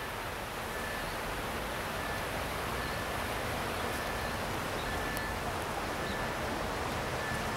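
Steady outdoor rushing noise, growing slightly louder, with a faint high-pitched tone that comes and goes in short repeated dashes.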